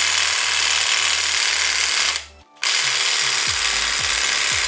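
Compact impact wrench hammering, tightening the top mount nut on a car's front strut. It runs in two long bursts with a short break a little after two seconds in.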